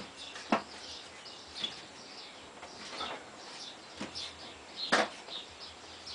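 Birds chirping in the background, repeated short high notes, with a few sharp knocks; the two loudest come about half a second in and about five seconds in.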